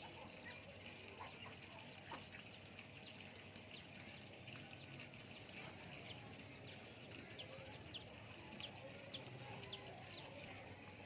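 Small birds cheeping: a run of short, high, falling peeps, about two a second, faint over a low steady hum.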